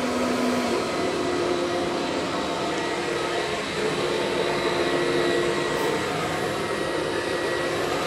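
Kirby Diamond Edition upright vacuum running steadily. About a second in its hum changes pitch as the two-speed switch is flipped, and it then runs on at the switched speed, which is quiet.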